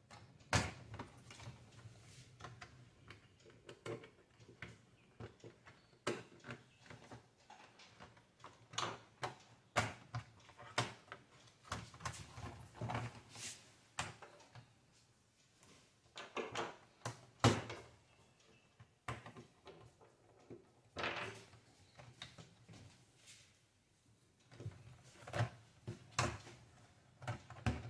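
Irregular clicks and knocks of plastic and small tools as a laptop's bottom cover is worked at to get it open. A few sharper knocks stand out, one at about 17 seconds and one near 21 seconds.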